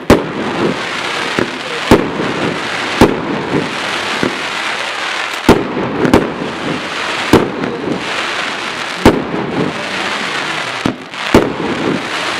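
Multi-shot consumer firework battery (cake) firing: a dozen or so sharp bangs at irregular intervals, over a steady crackling hiss.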